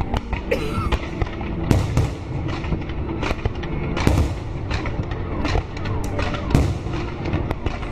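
Fireworks display: a rapid, irregular run of bangs and crackles from shells bursting overhead, several a second, over a constant low rumble.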